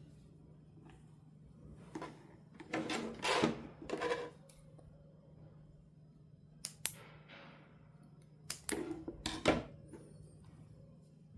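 Hands handling a doll and its plastic packaging: light clicks and short rustles in two clusters, about two seconds in and again about seven to nine and a half seconds in, over a faint steady hum.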